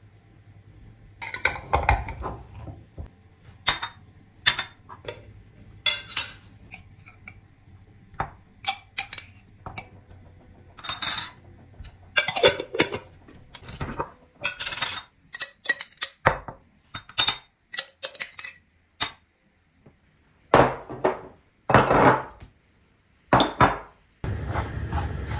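Metal spoons clinking against glass jars and small glass dishes, with dishes set down on a hard surface: a string of separate light clinks and knocks with short quiet gaps between them.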